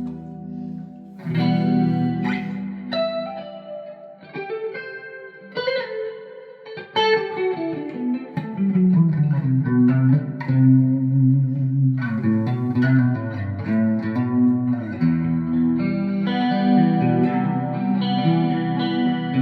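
Electric guitar played through an ambient clean pedalboard preset with delay, reverb and chorus: undistorted chords and notes ringing out with long washy trails.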